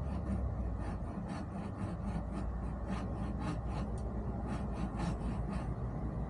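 Hand saw cutting through a piece of wood, its strokes rasping about two to three times a second over a steady low rumble.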